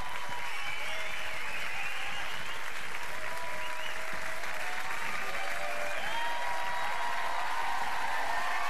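Large studio audience applauding steadily, with cheers rising over the clapping.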